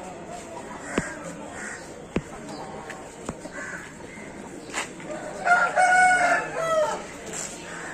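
A rooster crowing once: one long crow of about a second and a half, starting about five and a half seconds in. A few sharp clicks come in the first few seconds.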